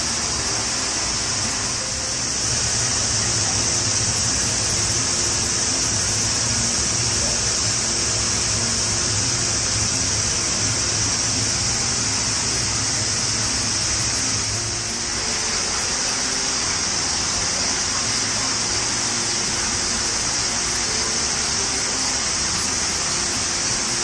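Steady rush of flowing water: hot-spring water running into an open-air bath, or the river in the gorge below.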